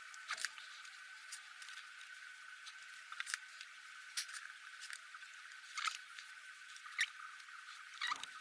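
Faint clicks and squishes of a hand grease gun being pumped into a rusty ball joint's grease fitting, a stroke every second or so, over a steady high hiss.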